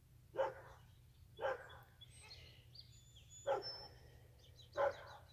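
A dog barking: four single barks, one to two seconds apart, over a steady low hum.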